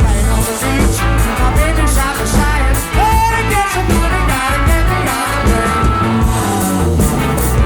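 Rock song with singing, guitar and drums playing as a music track.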